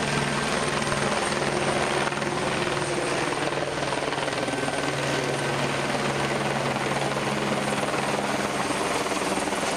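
Search and rescue helicopter flying low overhead: steady rotor and engine noise with a constant low hum.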